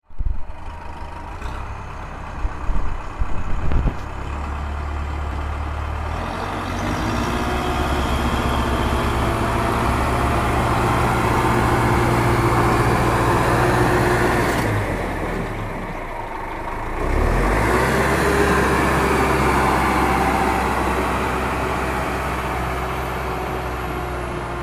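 A heavy diesel vehicle engine running with a steady low throb. It eases off about fifteen seconds in and picks up again about two seconds later, and there are a few rattling knocks in the first few seconds.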